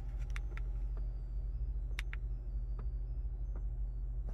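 Several light clicks from the push-button on an EL glow decal's control box, two of them close together about two seconds in, over a steady low hum.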